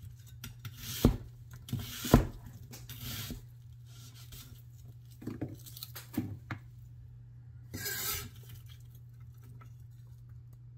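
Chinese vegetable cleaver slicing a red onion on an end-grain wooden chopping block: crisp cuts through the onion with two sharp knocks of the blade on the wood about one and two seconds in, then a few lighter taps. About eight seconds in comes a brief scraping swish of the blade sliding across the board under the cut pieces.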